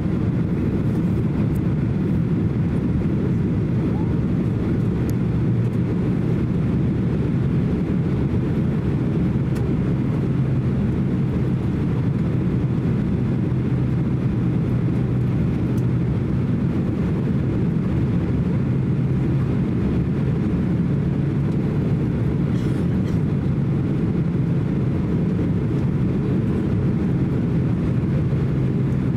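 Boeing 767-300 cabin noise in flight: the steady low drone of the turbofan engines and rushing air, heard from a window seat beside the engine, with a steady low hum underneath.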